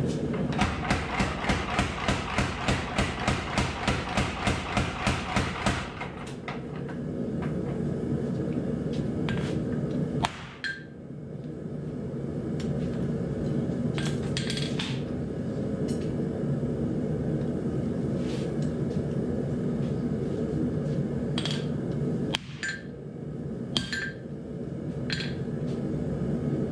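A power hammer pounding a glowing steel billet in a fast, even run of blows, about four a second for about five seconds, as a san mai billet is welded and drawn out. Then a few scattered, lighter hand-hammer strikes on the anvil, over a steady low rumble from the running propane forge.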